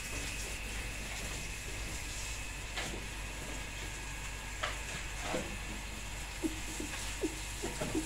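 Steady hiss, with a few scrapes in the middle and then a run of short knocks about every half second near the end, from a worker's long-handled shovel working a bare concrete floor.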